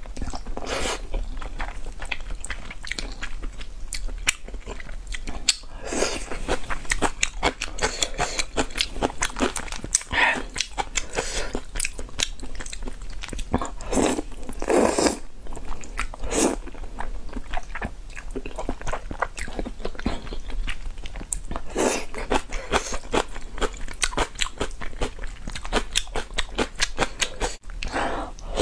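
A person slurping up spicy instant fire noodles and chewing them wetly: a slurp every few seconds, with steady chewing clicks in between.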